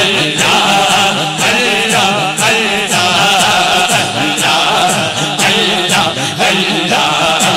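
A man's voice chanting devotional zikr in long, wavering, drawn-out notes without a break.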